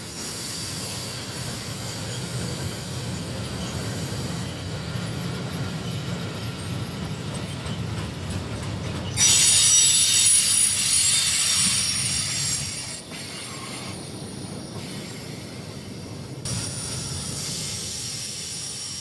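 Covered freight wagons rolling past on the rails with a steady low rumble. About nine seconds in comes a loud, high-pitched wheel squeal, several tones at once, which fades over the next few seconds.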